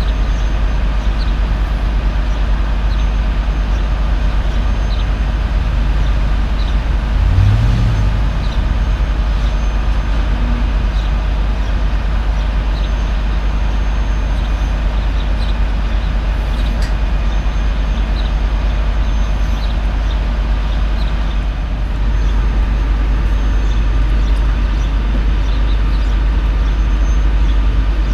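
Diesel truck engine running steadily, with a short low swell about seven seconds in.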